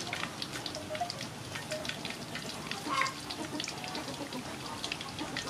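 Hot oil sizzling and crackling in a wok around pan-fried sole: a steady fizz with many small pops. A brief squeak about three seconds in.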